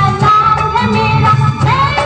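Bollywood-style song playing: a singing voice over a repeating bass beat.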